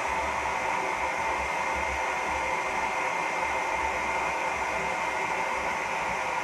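Forced-air gas forge running: a steady rushing hiss from the burner and its electric blower, with a faint high whine.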